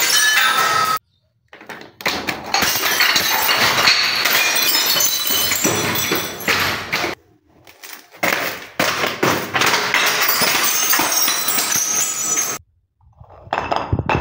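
Glass bottles filled with gel water beads smashing on marble stairs, with shards and beads clattering and tinkling down the steps. The clatter comes in four stretches, cut off by three short silences: about a second in, about seven seconds in and near the end.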